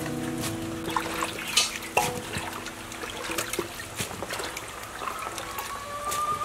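Water trickling and dripping from handfuls of freshly washed cut vegetables as they are lifted out of a basin of water and dropped into a plastic basket, with scattered wet splashes and plops.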